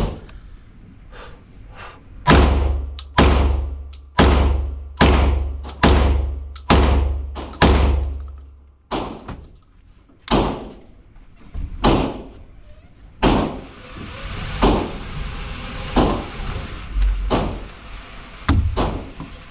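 Beretta 1301 Tactical semi-automatic 12-gauge shotgun firing seven rapid shots, a little under one a second, each a booming report. Quieter gunshots follow at intervals of about a second.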